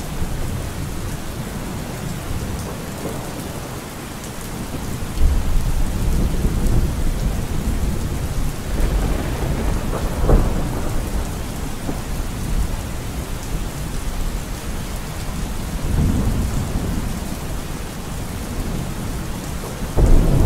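Thunderstorm: steady heavy rain with rolling thunder. A low rumble builds about five seconds in, a sharp thunderclap cracks about halfway through, and more rumbles follow, with a loud burst right at the end.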